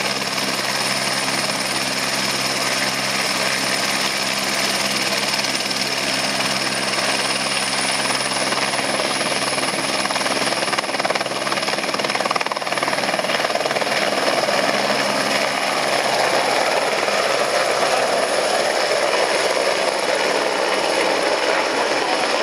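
Eurocopter Écureuil light helicopter turning its rotor on the ground, its turbine making a high, steady whine that rises slightly in pitch as power comes up. About twelve seconds in it lifts off, and the rotor noise grows fuller and louder as it climbs away.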